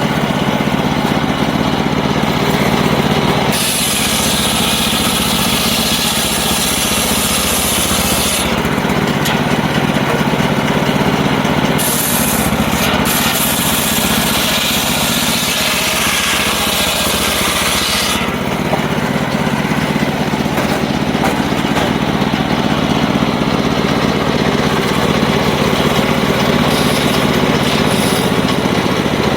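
Circular saw running steadily and cutting through wood twice. Each cut is a stretch of hissing, rasping noise several seconds long over the saw's hum: the first starts a few seconds in, the second runs through the middle.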